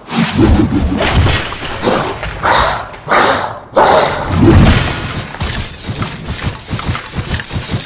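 Designed horror sound effect of a skeleton monster attacking and smashing things: a dense run of crashes, thuds and breaking. A heavy thud about four and a half seconds in is followed by a fast run of clattering hits near the end.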